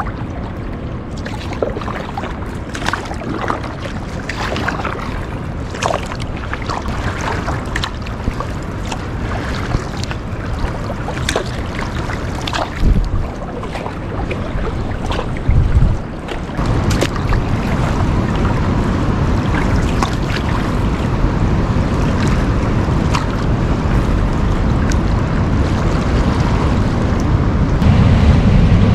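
Wind buffeting the microphone over water, with small splashes and drips from the water around a kayak; the wind rumble grows heavier about halfway through.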